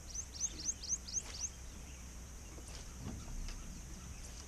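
A small bird calling a quick run of about seven short, high, rising chirps, about four a second, which stops about a second and a half in. After that only faint outdoor quiet with a few soft clicks.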